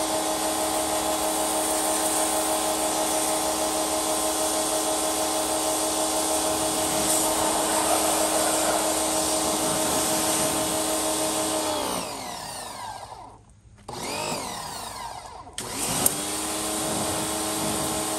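Electric pressure washer's motor and pump running with the water jet hissing. About twelve seconds in, the motor winds down to a stop and goes quiet for a few seconds. A click near the end starts it up again.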